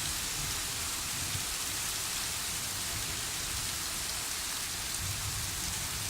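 Heavy rain pouring down steadily in a thunderstorm, a continuous even hiss of rain on surfaces.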